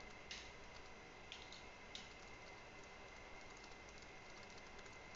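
Faint typing on a computer keyboard: scattered light key clicks, over a thin, steady, faint high whine.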